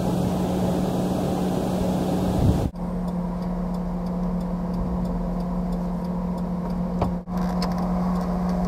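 Vehicle cabin noise while driving: a steady engine hum with road and tyre noise, dropping out briefly twice.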